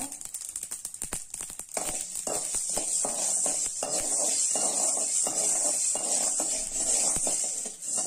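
Mustard seeds popping as they dry-roast with black peppercorns and rock salt in a metal pan: rapid crackling clicks at first, then from about two seconds in a steady scraping rattle as a metal spatula stirs the seeds around the pan. The popping is the sign that the mustard is roasted enough to take off the heat.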